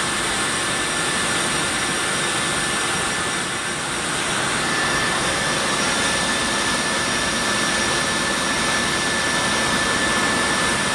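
In-flight noise inside the cargo hold of a C-17 Globemaster III: the steady roar of its four turbofan engines, unbroken throughout, with a thin steady whine over it.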